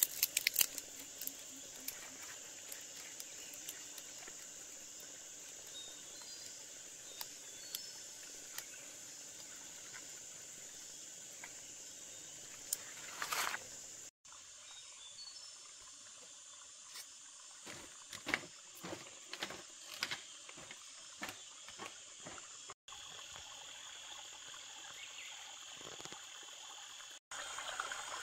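Steady high chirring of insects with scattered light clicks. In the second half comes a quick run of about a dozen knocks from handwork.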